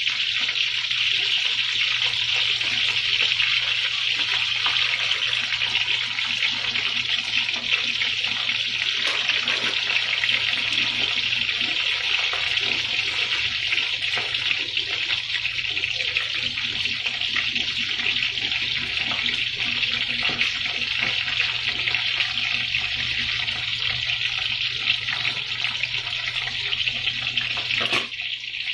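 Eggs frying in hot oil in a pan, set in rings of bitter melon: a steady, even sizzle, with a faint low hum underneath.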